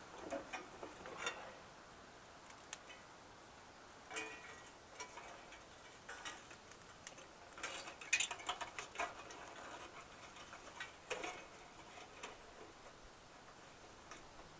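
Faint, irregular light clicks, taps and rustles of small objects being handled, with busier clusters about four and eight seconds in.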